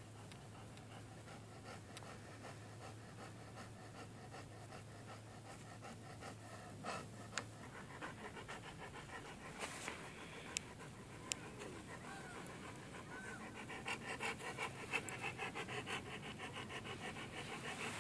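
A dog panting rapidly and evenly, becoming louder in the last few seconds, with a few sharp clicks midway.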